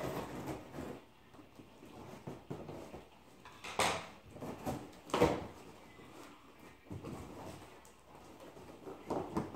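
A large cardboard shipping box being worked open by hand: cardboard scraping and rustling, with two louder, sharp noises about four and five seconds in.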